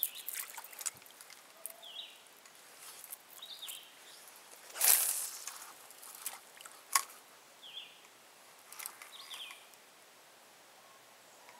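Light water lapping and sloshing around a canoe, with scattered knocks and clicks from handling fishing gear in the boat and one louder burst of splash-like noise about five seconds in. A few short high chirps come through now and then.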